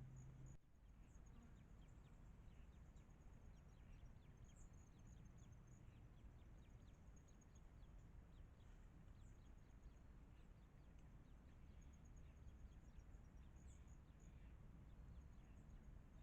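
Faint outdoor ambience: insects chirping in quick, high-pitched trains of pulses, with short falling chirps over a low, steady rumble.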